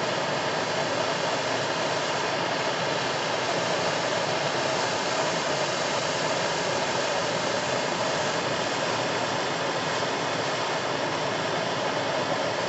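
Gas torch flame running with a steady rushing noise as it burns carbon and oil residue off a two-stroke trimmer muffler's spark arrester screen.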